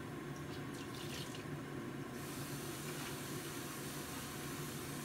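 Water heating toward the boil in a covered stainless steel pot over a gas burner flame: a steady hiss with a low hum, the hiss growing brighter about two seconds in.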